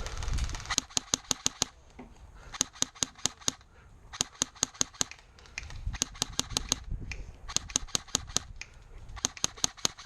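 Airsoft gun firing in several short full-auto bursts, a rapid run of sharp clicking shots at about ten a second in each burst, with short pauses between bursts.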